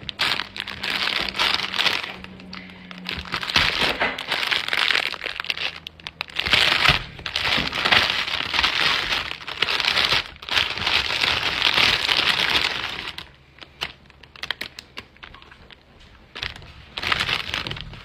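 Plastic wrap around a premade sandwich crinkling and crackling as it is peeled open by hand, in long stretches. It eases to scattered small clicks about two-thirds of the way through, then gives one more burst of crinkling near the end.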